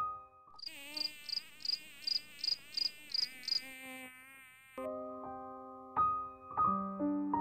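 Cartoon bee buzzing sound effect: a wavering buzz lasting about four seconds, with about ten short high pips at an even pace, about three a second, over it. Soft piano music plays before it and comes back near the end.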